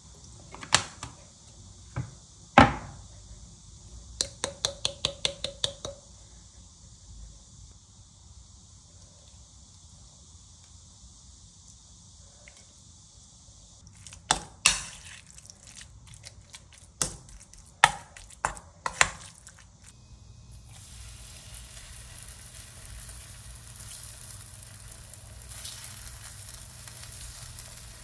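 Kitchen cooking sounds: a knife chopping on a cutting board, with a quick run of about nine strokes around four seconds in and scattered knocks, then from about twenty seconds in the steady sizzle of food frying in a pan.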